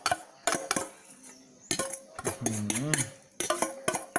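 Metal spoon scraping and clinking against stainless steel bowls as chopped herbs are scooped from one bowl into the other. It comes as a string of sharp clicks and scrapes.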